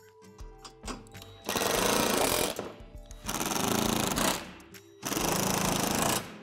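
Cordless drill/driver running in three bursts of about a second each, driving three screws through a plastic shed wall panel into its wall support.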